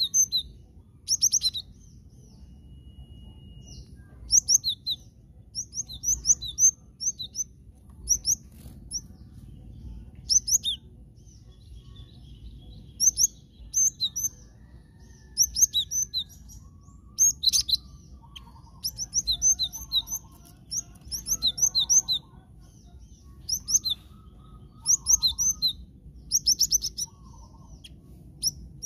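Cinereous tit (glatik batu) singing: rapid clusters of high, sharp chirps, each burst about a second long, repeated every second or two.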